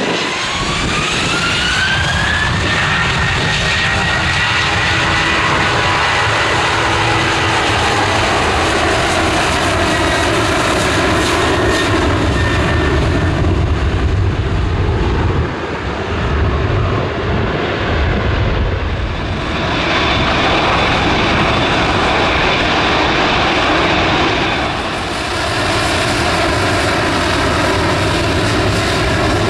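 Jet airliner engines running loudly. A whine rises over the first couple of seconds, then holds as a steady high whine over a continuous rush, with gusts of wind buffeting the microphone.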